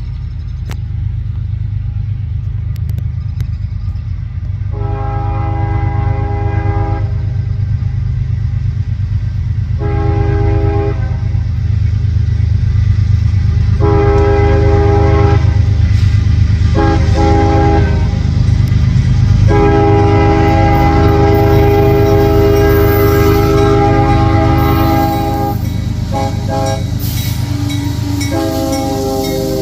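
Lead diesel locomotive of a CSX freight sounding its five-chime K5HL air horn in a series of blasts of differing length, the longest held about five seconds past the middle. Under the horn is the steady low rumble of the passing locomotive and train.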